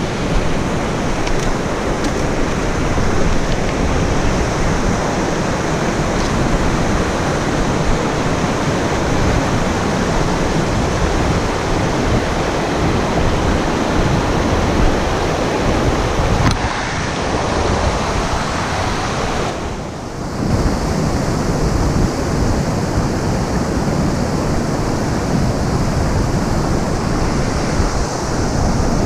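Rushing water of a rocky stream's rapids and small cascades: a loud, steady rush that goes briefly duller and quieter about twenty seconds in.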